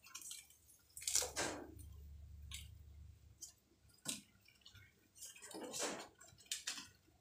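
Light handling sounds of wet ketapang (Indian almond) leaves being held and torn over betta containers: five or six short soft rustles and knocks a second or so apart, with a low rumble about two seconds in.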